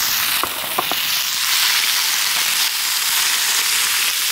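Strips of raw beef sizzling steadily in a hot wok, stir-fried and turned with a metal spatula.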